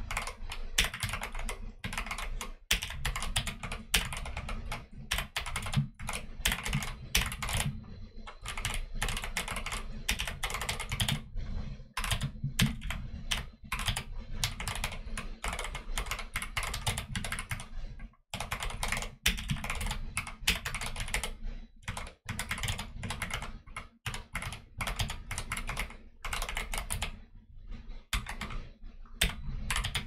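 Fast typing on a YMDK Wings Alice-layout mechanical keyboard with Akko Jelly Black linear switches and Akko Neon keycaps: a quick, continuous clatter of keystrokes with a few short breaks.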